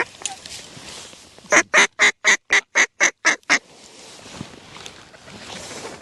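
Mallard duck call blown close by in a quick run of nine short, loud quacks, about four a second, calling to a single incoming mallard.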